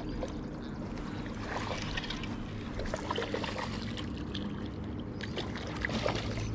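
Steady wind and small lapping waves on a GoPro's microphone at the water's edge, with light handling clicks; about six seconds in, a small splash as a released smallmouth bass drops into the shallows.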